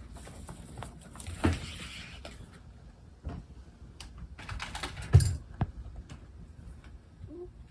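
Guinea pigs moving about, with rustling and scattered light clicks and knocks and two louder thumps, the loudest about five seconds in. A faint short squeak comes near the end.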